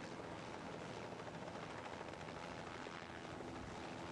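Steady drone of a firefighting helicopter overhead, mixed with the rushing hiss of water and foam jets sprayed onto burning alcohol tanks.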